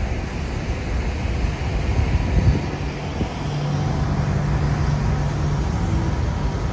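Road traffic passing close by: a steady rumble of cars and buses, with an engine drone holding one pitch for about three seconds in the middle.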